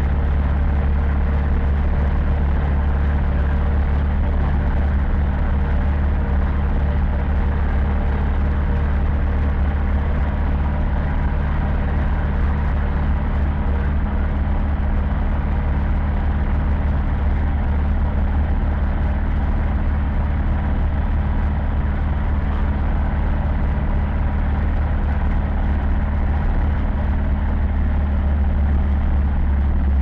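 Zetor 7011 tractor's four-cylinder diesel engine running steadily under way, heard from inside the cab as a deep, even drone.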